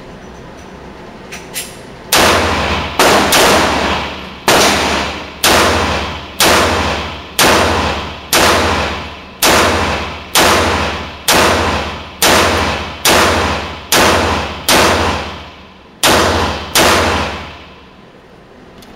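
A Beretta 92FS 9mm pistol fired in slow, steady succession: about sixteen shots, roughly one a second, each ringing out and echoing in an indoor range.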